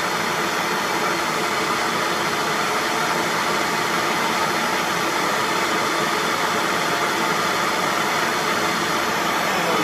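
Heat gun blowing with a steady rushing noise while heating the clutch hub nut, to soften the Loctite 648 threadlocker that holds it on.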